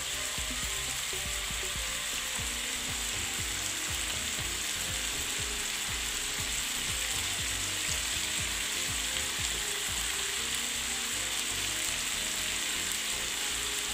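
Marinated chicken pieces sizzling steadily as they shallow-fry in hot oil in a nonstick pan, with scattered small crackles of spitting oil.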